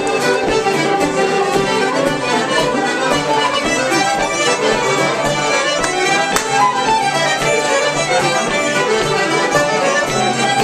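Traditional Irish session tune played on button accordion and fiddle together, with a steady tapping beat underneath.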